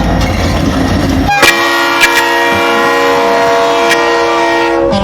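Train horn sounding one long chord of several steady tones for about three and a half seconds, coming in about a second and a half in over a low rumble.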